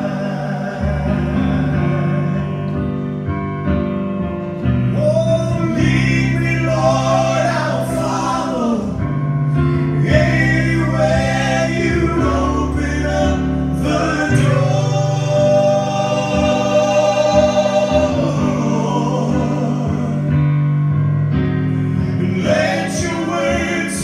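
Male vocal trio singing a slow gospel song in close harmony into handheld microphones, holding long sustained notes.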